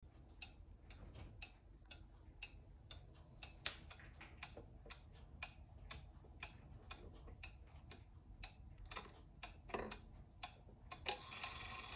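Belvedere 31-day pendulum wall clock ticking faintly, about two ticks a second. A few louder clicks come as the minute hand is pushed round by hand.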